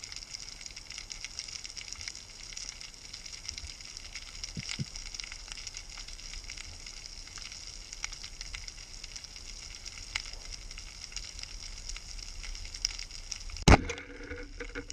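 Steady fine underwater crackling and hiss, then near the end a single sharp, loud crack as a wooden Güepard band speargun is fired.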